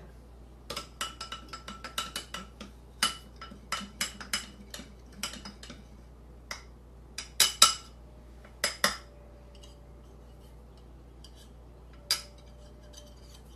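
Danish dough whisk's wire loops clinking against a glass bowl as sourdough starter is stirred briskly to whip air into it. A quick run of ringing clinks fills the first five seconds or so, then scattered clinks follow, the loudest about seven and a half seconds in.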